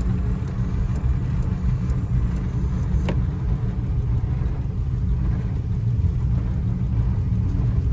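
Plymouth car running on the road, a steady low engine and road rumble, with a single sharp click about three seconds in.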